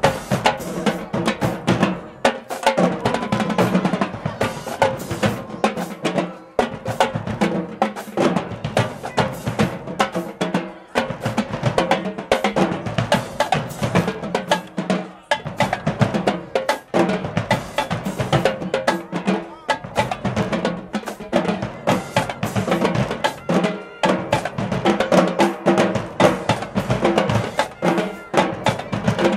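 HBCU marching band playing a dance groove: the drumline's snares and bass drums drive a fast, steady beat, with the horns' sustained notes underneath.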